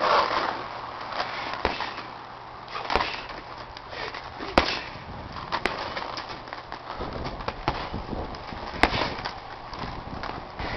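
Boxing gloves punching a hanging heavy bag: about half a dozen sharp thuds, irregularly spaced a second or more apart, the loudest right at the start.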